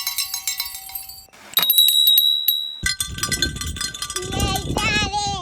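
Small handheld bells rung one after another: a bell shaken rapidly with many quick strikes, then a higher bell struck a few times and left to ring, then another bell ringing with a wavering tone that rises near the end.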